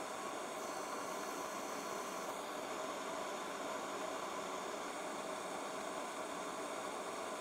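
Steady hiss with a faint hum underneath; no distinct clicks or events.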